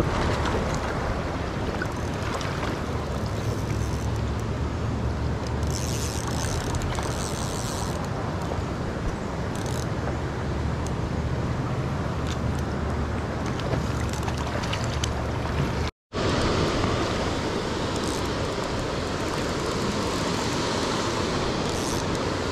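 Steady rush of flowing spring-creek water mixed with wind on the microphone, with a low rumble underneath; it breaks off for a moment about sixteen seconds in.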